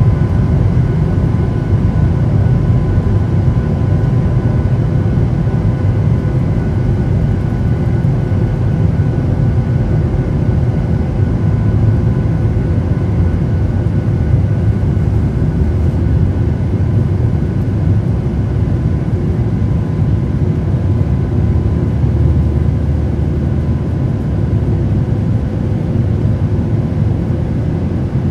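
Steady cabin noise of a Boeing 737 MAX 8 in flight, heard from a window seat: a deep, even rush of airflow and CFM LEAP-1B engine noise, with a few faint steady whining tones above it.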